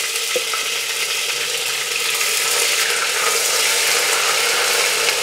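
Ginger-garlic paste sizzling steadily in hot oil with whole spices in an aluminium pressure cooker, stirred with a wooden spatula.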